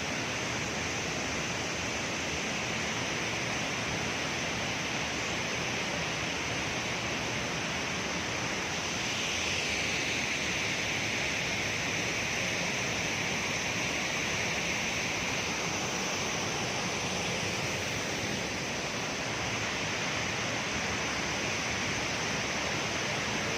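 Waterfall: the steady, unbroken rush of a large volume of falling water.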